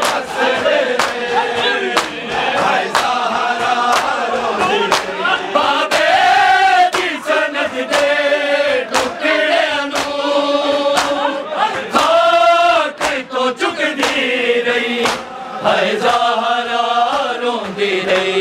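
Group of men chanting a Punjabi noha in unison, answering a lead reciter, over a steady rhythm of sharp beats from matam, mourners striking their chests with their hands in time.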